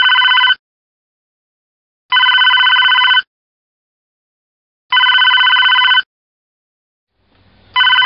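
Telephone ringing in a repeating electronic warble: about one-second rings every two and a half to three seconds. The first ring is already sounding, two full rings follow, and a fourth begins near the end.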